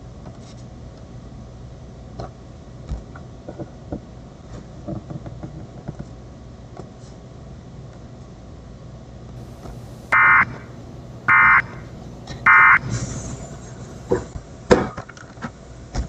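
Steady tape-like hiss and hum with faint scattered clicks, then about ten seconds in three short bursts of Emergency Alert System data tones about a second apart: the end-of-message signal that closes the alert. A brief rush of hiss and a few sharp clicks follow near the end.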